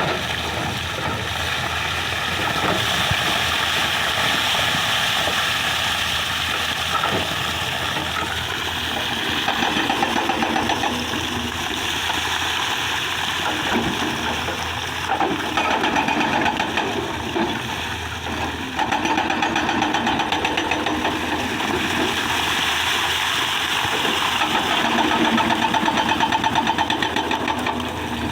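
Excavator's diesel engine running under load, its level rising and falling as it works.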